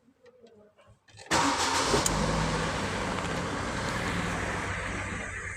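Ford Focus engine starting about a second in and settling into a steady idle. The car starts now that the faulty electric sunroof module, which had shorted the CAN bus and stopped it from cranking, is dealt with.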